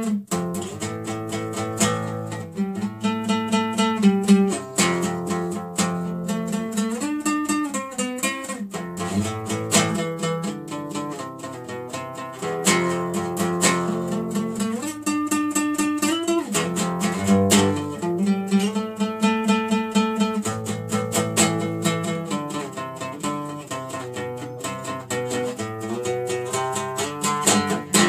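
Solo classical guitar played by hand, a quick, unbroken run of plucked notes mixed with strummed chords.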